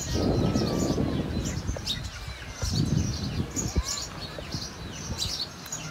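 A flock of small birds chirping: many short, high calls overlapping continuously over low background rumble.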